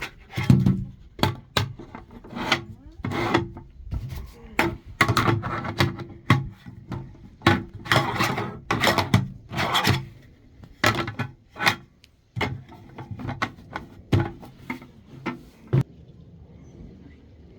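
A string of knocks, clatters and scraping, rubbing noises, as of things being handled and moved about, which settle into a quieter steady background near the end.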